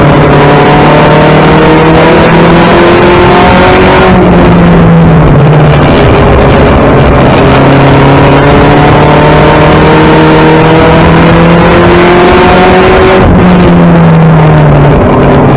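1992 Toyota Celica GT race car's engine under hard throttle, heard loud from inside the stripped, caged cabin. Its pitch climbs slowly down each straight and drops sharply about four seconds in and again near the end, as the car comes off the throttle into the turns.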